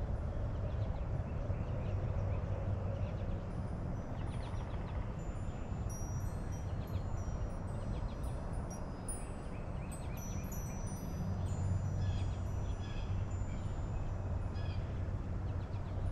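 Steady low outdoor rumble, with faint high-pitched chirps and twitters of small songbirds from about four seconds in until near the end.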